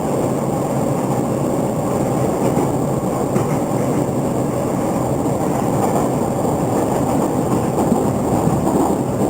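Running noise heard from inside the car of a JR East E231-800 series commuter train: a steady rumble of wheels on rail, with a few faint clicks.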